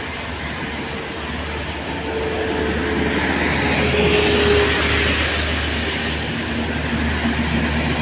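Heavy highway traffic of buses and trucks passing, swelling to a peak about four to five seconds in as a large vehicle goes by close, then easing off; no telolet horn sounds.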